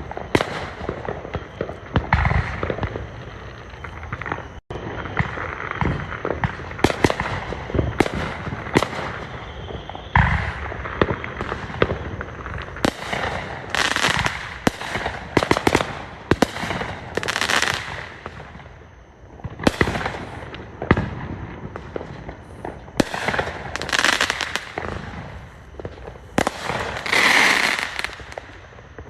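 Fireworks going off: a dense series of sharp bangs and crackles, with loud clusters of bursts in the second half.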